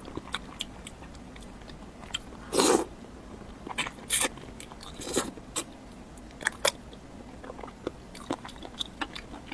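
Close-miked eating of stewed fish fat: irregular wet biting and chewing smacks and clicks, with the loudest bites about two and a half and four seconds in.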